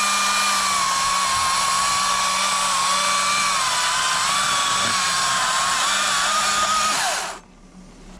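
Battery-powered electric chainsaw running and cutting through a downed tree, its motor whine sagging slightly under load, then cutting off suddenly near the end.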